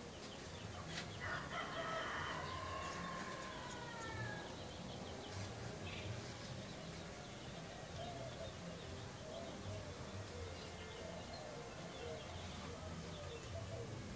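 A rooster crows once, about a second in: one long call of about two seconds that falls in pitch toward its end.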